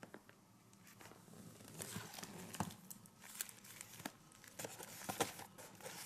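Boxed fireworks being handled and moved about, their plastic wrapping crinkling and rustling, with irregular small knocks and clicks that grow busier after the first second or so.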